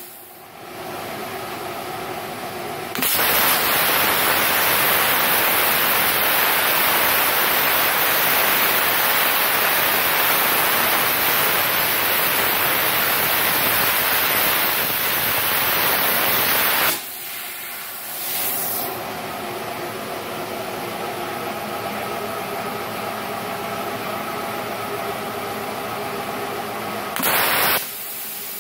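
Inverter plasma cutter cutting steel at 95 amps: a loud, even hiss of the plasma arc begins about 3 s in and lasts about 14 s, then stops abruptly. A quieter steady hiss and hum carries on afterwards, with a short loud burst of hiss near the end.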